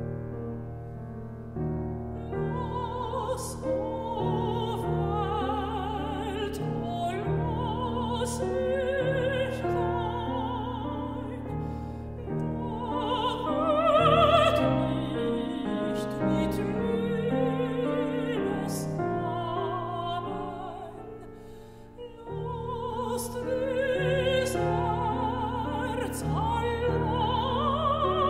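Operatic soprano voice with wide vibrato singing a German art song over Fazioli grand piano accompaniment. The piano plays alone for about the first two seconds before the voice enters, and the voice breaks off briefly about three-quarters of the way through.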